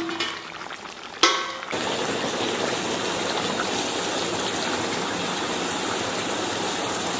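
Spicy broth with pig intestines boiling hard in a wok: a steady bubbling hiss. About a second in there is a short, sharper sizzle, where vinegar splashed on the hot wok edge hits the heat.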